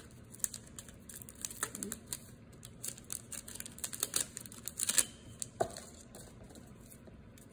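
Freshly opened Pokémon trading cards being handled: a run of light, irregular clicks and taps as the cards slide and knock together, loudest around four to five seconds in.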